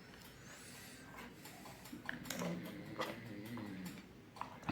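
Faint, scattered clicks and taps of multimeter test probes and a small LED bulb being handled and set in place.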